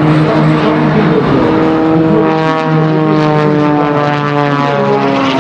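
MXS-RH aerobatic monoplane's piston engine and propeller droning at a fairly steady pitch as it flies its display, with a slight rasp partway through.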